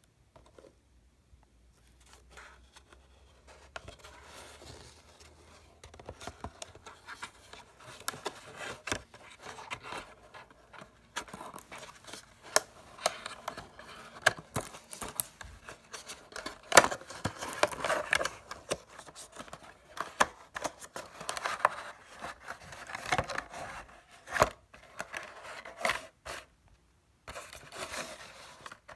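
Cardboard box and clear plastic blister packaging being handled and slid apart by hand: rustling, scraping and crinkling with many sharp clicks and taps. It starts a couple of seconds in and is busiest in the middle.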